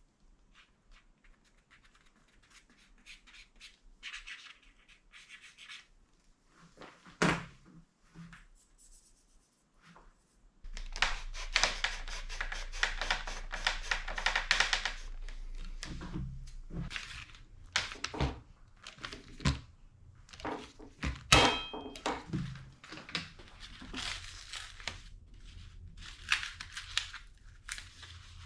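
Workbench handling noises: scattered knocks and dense clicking and rustling, with a sharp knock about 7 seconds in and another, louder one about 21 seconds in. A steady low hum starts about 10 seconds in.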